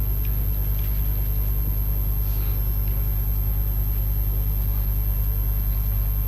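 A steady low hum with a thin, constant high whine above it.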